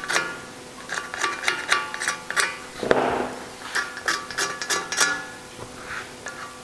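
Hand bearing scraper deburring the machined edges of an air-cooled Porsche magnesium crankcase: a run of short scraping strokes, about two to three a second, with a fuller, longer stroke about three seconds in.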